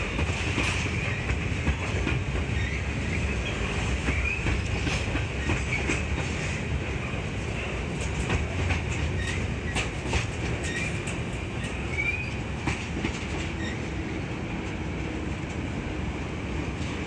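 Container wagons of a freight train rolling past at close range: a steady rumble of wheels on rail with repeated clicks as wheels cross rail joints, and a few brief high squeals from the wheels.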